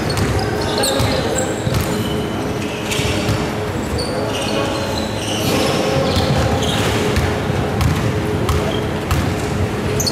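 Basketball bouncing on a wooden gym floor, with sneakers squeaking on the court, in a large sports hall.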